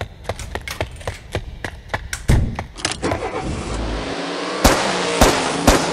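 Sound-effect track: quick regular taps, about four a second, then a heavy thud a little over two seconds in. A car engine starts and revs away, and three sharp bangs come about half a second apart near the end.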